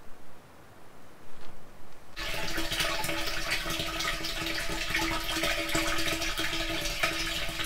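Water from a hose, filtered through a muslin cloth, starts running into a caravan's fresh-water tank about two seconds in and runs on steadily with a hum under it.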